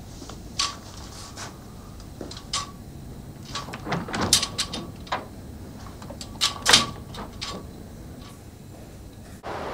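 A door being opened and closed: a series of sharp clicks and knocks of the handle, latch and door, the loudest about four and seven seconds in. Just before the end it gives way suddenly to a steady hiss.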